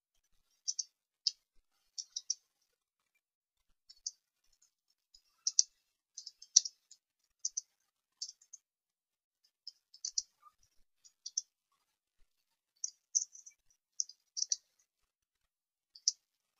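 Typing on a computer keyboard: light keystroke clicks in short irregular runs, with silent gaps between them.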